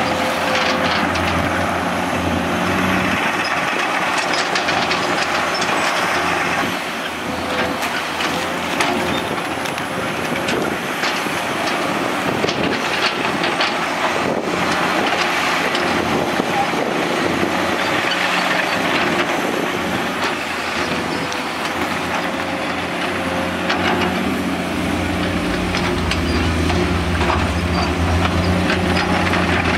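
Komatsu PC210 hydraulic excavators' diesel engines running under load while digging wet sand and mud, with scattered knocks and scrapes from the bucket working the ground. The deep engine hum is strongest at the start and again near the end.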